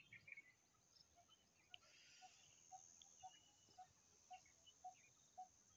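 Faint countryside ambience: a steady high drone like insects, a soft low call repeating evenly about twice a second, and scattered short bird chirps.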